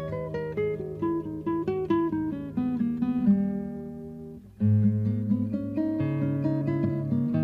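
Acoustic guitar music: a run of plucked notes stepping downward fades out, then a louder new phrase with deep bass notes starts about four and a half seconds in.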